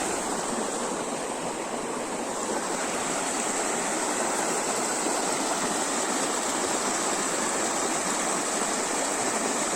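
Steady, even rush of water pouring over a waterfall.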